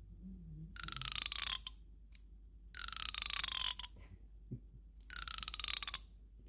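A grey tabby cat giving three raspy meows, each about a second long and falling in pitch, with a rapid rattle running through each call.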